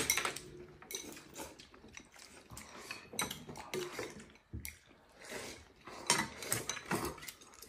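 Several people eating noodles from porcelain bowls with chopsticks: irregular clicks and clinks of chopsticks against the bowls, with a few short scraping sounds.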